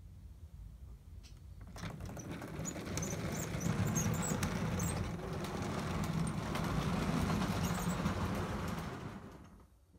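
HO-scale model train, a Lima SNCF BB 9291 locomotive hauling Jouef and Lima coaches, running on the layout track: a steady rolling rumble of wheels and motor with scattered clicks. It grows louder about two seconds in and fades out near the end.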